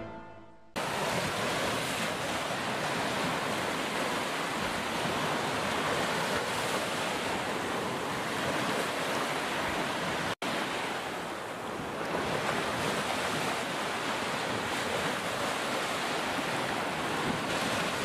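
Sea waves washing onto a beach in a steady surf, cut off for a split second about ten seconds in.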